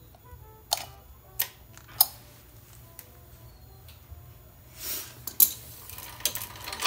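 Metal drive chain being worked off a mini bike's sprockets by hand: a few sharp separate clinks, then a brief scraping rattle and another clink about five seconds in.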